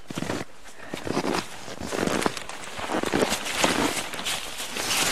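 Footsteps crunching in cold packed snow, an uneven run of steps.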